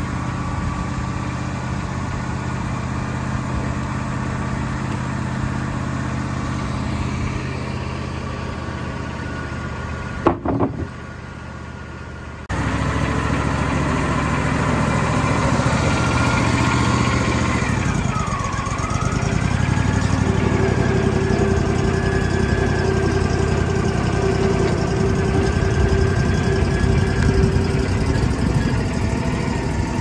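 Wood-Mizer LT40 sawmill engine running while its hydraulics work the log. About twelve seconds in the sound gets louder, and a whine dips and rises in pitch a few seconds later as the hydraulics load and ease off while turning and clamping the log.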